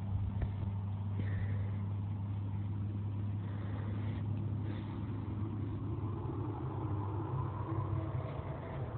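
An engine running steadily with a low, even hum. From about two-thirds of the way through, a higher whine rises slowly and grows louder.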